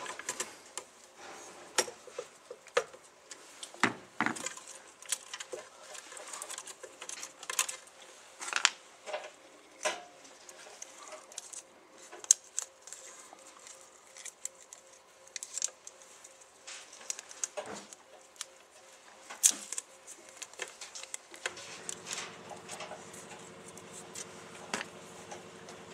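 Scattered small clicks, taps and rustles of hands handling wires, a screwdriver and a wire label inside a metal switch box. About 21 seconds in, a steady low hum starts and carries on.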